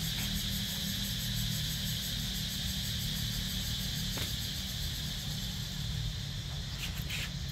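Steady background noise: a low rumble under a steady high-pitched hiss, with a faint tick about four seconds in.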